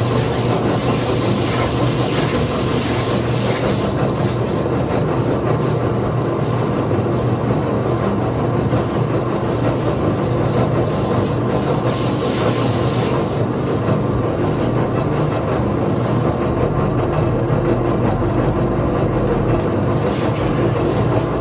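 Power sanding or shaping tool running steadily against a wooden skateboard deck, a constant motor hum under the noise of abrasive on wood.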